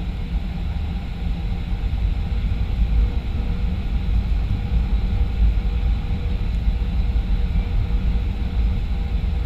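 Steady low rumble of a Boeing 737-500's CFM56-3 jet engines and airflow, with faint steady whining tones above it.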